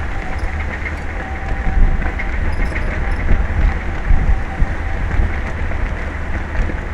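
Wind buffeting an outdoor microphone: a steady low rumble with a hiss over it.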